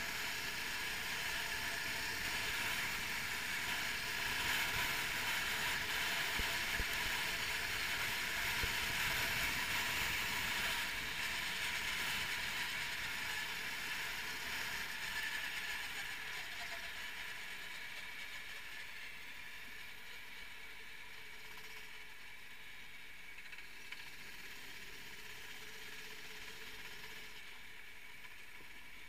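390cc kart engine running, heard from the onboard camera, a steady engine note. It is loudest in the first twelve seconds and then eases off and grows quieter as the kart slows into the lane by the buildings.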